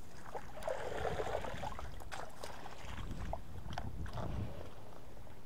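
Water splashing as a wire-mesh keepnet holding caught fish is dipped back into the river, for about a second and a half, followed by a few light knocks and clicks.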